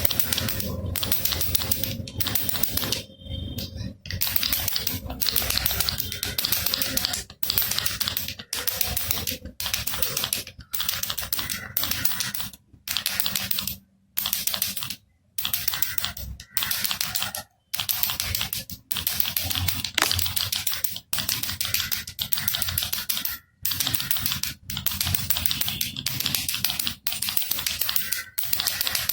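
Baby rattle shaken in bursts of about a second with brief pauses between, a dense clicking clatter.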